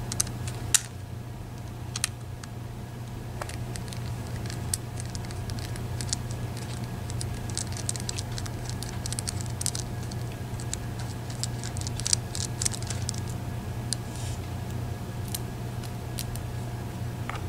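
Small, sharp metal clicks and scraping as a red-handled tool is worked into a Medeco Biaxial lock cylinder to take it apart. The clicks come irregularly and are busiest in the middle, over a steady low hum.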